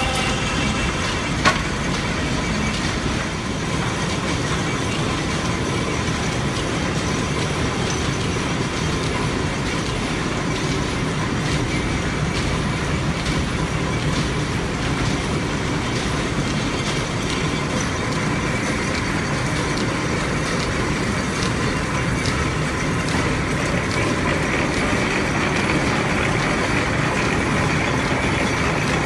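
Belt-driven woodshop machinery running: the constantly turning lineshaft, pulleys and flat belts make a loud, steady mechanical noise. A single sharp knock comes about a second and a half in.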